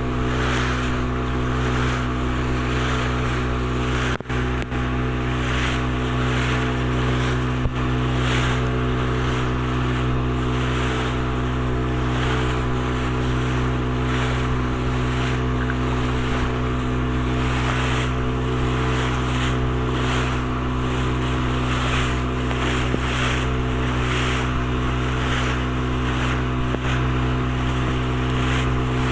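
Motorboat engine running at a steady speed, with rushing water and wind noise that swell and fade every second or so.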